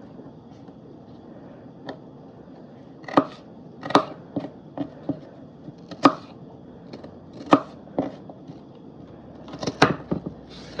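Kitchen knife chopping potatoes into small cubes on a cutting board: irregular sharp knocks with uneven gaps, some louder than others.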